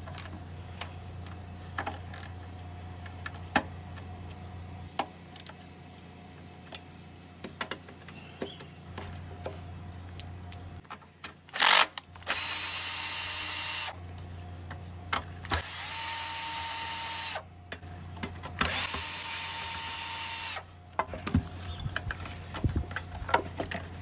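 Cordless drill with a socket spinning out bolts, three runs of about one and a half to two seconds each in the second half, after scattered light clicks and taps of hand tools loosening them.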